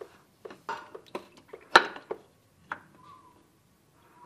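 Light metallic clicks and knocks from a spin-on engine oil filter being turned by hand off its mount, with one sharper knock just under two seconds in.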